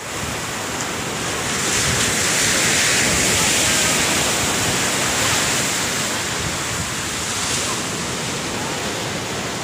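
Sea surf breaking and washing up a sandy beach: a steady rushing hiss that swells for a few seconds from about two seconds in, with wind buffeting the microphone.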